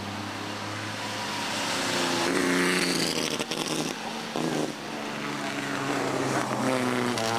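Engines of vintage racing cars running hard past on a circuit, the engine note climbing twice as they accelerate.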